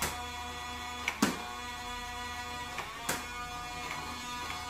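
Toy foam-dart gun firing three times, each sharp pop coming just after a fainter click: once right at the start, once about a second in, and once about three seconds in. Steady background music plays throughout.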